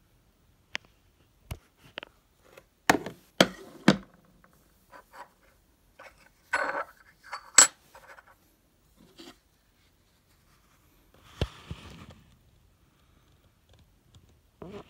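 Handling noise from cotton-gloved hands turning a Morgan silver dollar: irregular sharp clicks and light knocks, a few louder ones about three to four seconds in and one near eight seconds, then a soft rustle of the gloves.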